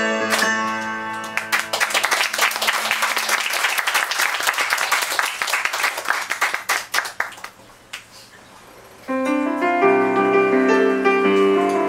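Keyboard closes a song on held chords, then a small audience applauds for several seconds. The applause dies away, and after a short pause the keyboard starts the introduction of the next song.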